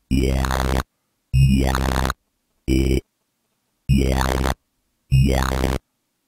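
Gritty dubstep bass synth from Ableton Live's Operator, noise-laced and bit-crushed through Redux, played as five short notes about a second and a quarter apart. A resonant low-pass filter sweeps through each note, giving the 'yoy' wobble.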